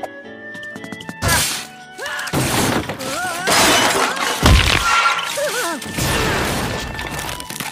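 Cartoon slapstick sound effects: a run of crashes, thuds and shattering as a shopping cart smashes through a grocery store, over background music.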